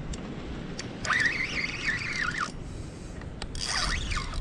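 Spinning fishing reel whining in two uneven, wavering spurts, the first about a second in and the second near the end, as a hooked fish is fought on a bent rod. A low wind rumble on the microphone runs underneath.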